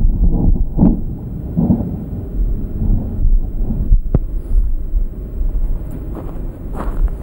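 Low, uneven rumbling with a single sharp click about four seconds in; near the end, footsteps crunching on gravel at a walking pace.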